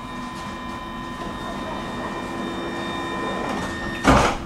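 Metro train's door-closing warning, a steady multi-pitched tone lasting about three and a half seconds, followed about four seconds in by the sliding doors shutting with a loud thud.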